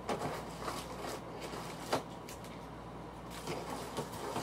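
Scattered light clicks and knocks, about six in four seconds, the sharpest about two seconds in.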